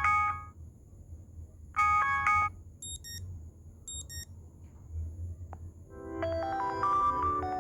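Motorola Moto C smartphone playing ringtones through its speaker. A short chiming chord sounds twice, about two seconds apart, then come two pairs of brief high beeps, and about six seconds in a new melodic ringtone starts with a rising run of notes, over a low steady hum.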